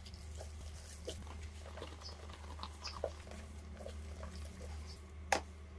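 Hands rubbing and squeezing a raw octopus with coarse salt in a plastic colander: soft wet squelches and small gritty scrapes, with one sharp click a little over five seconds in.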